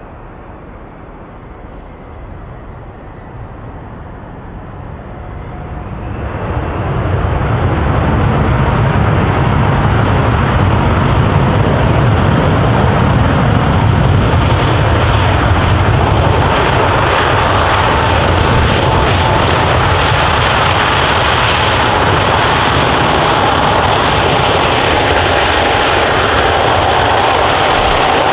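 Airbus A380's four jet engines and the spray off the wet runway as it lands and rolls out: a steady roar with a deep rumble that rises sharply about six seconds in and then holds loud, with a steady whine over it.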